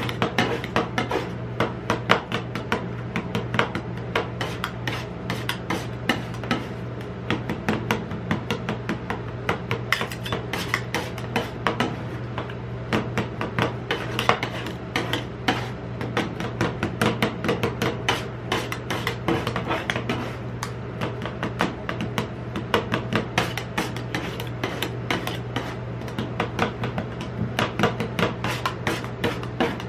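Two metal spatulas chopping and tapping dragon fruit into ice cream base on a stainless steel cold plate: a fast, irregular clatter of metal clicks mixed with scraping, over a steady low hum.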